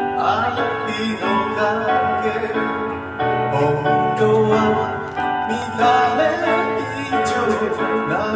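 A singer performing into a microphone over instrumental accompaniment, amplified through PA speakers.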